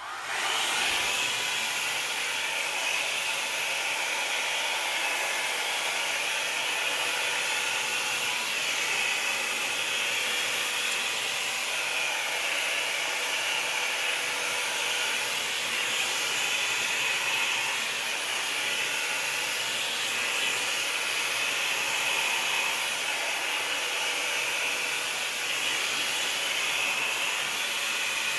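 Revlon Plus hair dryer switched on and running steadily on damp hair: a constant rush of air with a faint steady whine.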